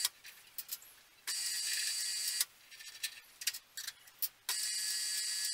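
Milling machine running with a steady high whine in two spells of about a second each, starting and stopping abruptly; between the spells, light clicks and taps.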